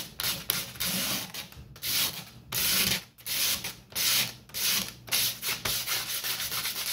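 A bare craft-knife blade scraping across glued wooden model-ship deck planking, smoothing the surface in repeated back-and-forth strokes that come faster near the end.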